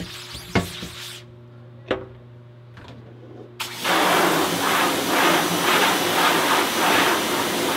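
Pressure washer spraying water onto a screen-printing screen, rinsing off degreaser. A few knocks at first; the loud, steady hiss of the spray starts about three and a half seconds in.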